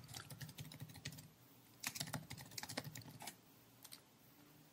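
Typing on a computer keyboard: two quick runs of keystroke clicks, the first stopping a little over a second in and the second ending a little after three seconds.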